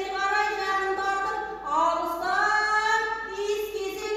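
A single high voice singing long, held notes that slide slowly up and down between pitches, with little or no instrumental accompaniment.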